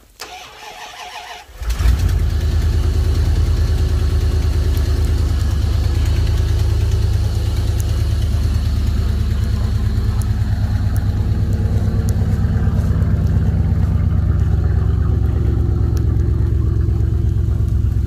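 2001 Dodge Ram 1500 4x4's engine cranking on the starter for about a second and a half, then catching and settling into a steady idle: a cold start in freezing weather.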